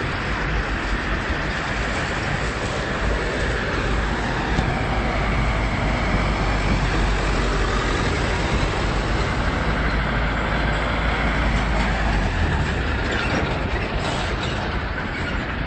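Road traffic noise: a steady low rumble with a dense hiss over it, the rumble easing about twelve and a half seconds in.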